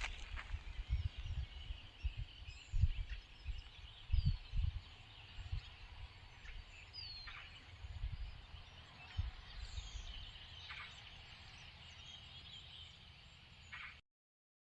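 Outdoor ambience: birds chirping now and then over a steady high hiss, with irregular low thumps. The sound cuts off suddenly near the end.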